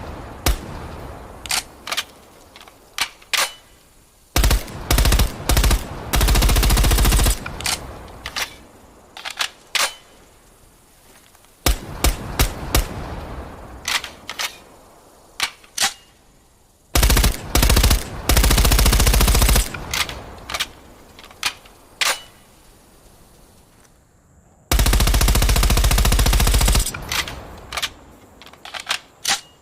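MP5 submachine gun firing: scattered single shots and short bursts, with three long full-auto bursts of two to three seconds each.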